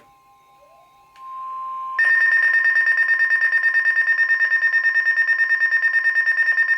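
Emergency alert tone on a weather radio broadcast: faint steady tones at first, then about two seconds in a loud, fast-pulsing high electronic alarm starts and holds, sounding ahead of a new National Weather Service warning.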